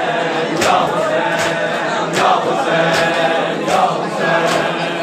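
Crowd of men chanting a Muharram mourning lament together, with hand slaps on bare chests (matam) landing in time, about one beat every three-quarters of a second.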